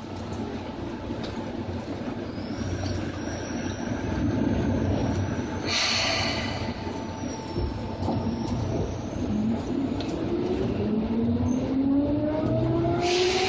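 Seibu 2000 series electric train heard aboard a motor car, a steady rail rumble and running noise. From about nine seconds in a motor whine rises steadily in pitch as the train accelerates under power. Two short hisses come about six and thirteen seconds in.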